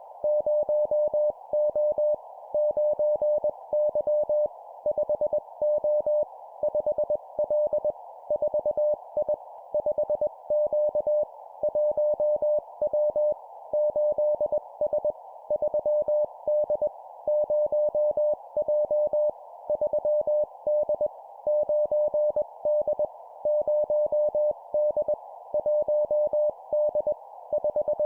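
Morse code (CW) sent at 20 words per minute as a single steady beep keyed on and off in dots and dashes, in short two-character groups of letters and numbers separated by brief pauses, over a soft band of hiss.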